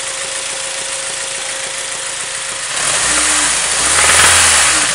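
Acura RSX Type S's four-cylinder engine idling warm, then given a little throttle about three seconds in, the revs climbing and dropping back toward idle near the end. The owner suspects an engine knock that shows up only once the engine reaches normal operating temperature.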